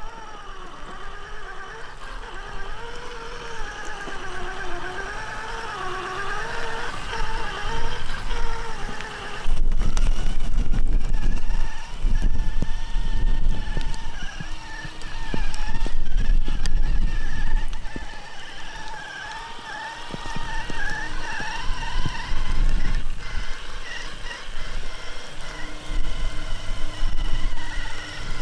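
Whine of an RC crawler truck's sensored brushless electric motor, rising and falling in pitch with the throttle as the truck crawls through grass and mud. Bursts of low rumble come and go, loudest from about ten seconds in.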